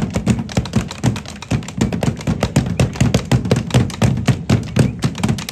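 A fast, irregular run of knocks and thumps, several a second, heaviest in the low range.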